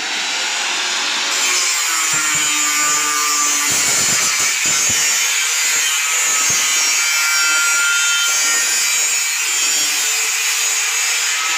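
Handheld angle grinder with a cut-off disc cutting through a roll-formed black-coil steel shutter strip, running continuously with a harsh hiss and a high whine.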